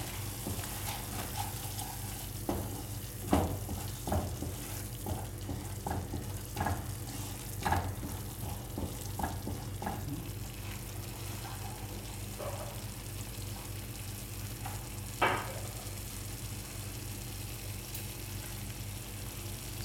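Wooden spatula stirring and scraping a thick tomato masala around a nonstick frying pan as it sizzles in the oil. The strokes come in a run of short scrapes and knocks, thickest in the first half, with a louder knock about three seconds in and another near fifteen seconds, over a steady low hum.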